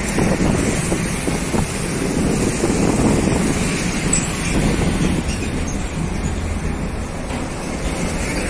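Traffic climbing an uphill road: a container truck and motorcycles running past close by, with engine and tyre noise, louder in the first few seconds. Near the end a small diesel tanker truck passes close, adding a low engine hum.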